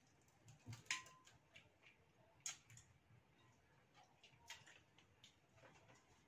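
Quiet, scattered clicks and crackles of eating: fried mantis shrimp shells being cracked, peeled and chewed, with a few sharper clicks, the loudest about a second in.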